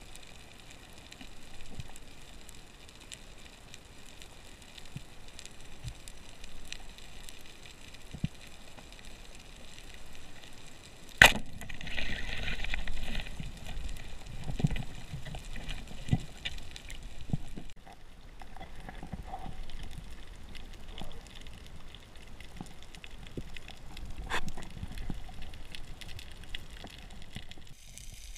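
Speargun fired underwater: one sharp, loud crack about 11 seconds in, followed by a couple of seconds of hiss and rattle. Under it runs a steady faint crackle of scattered small clicks from the reef, heard through the camera's underwater housing.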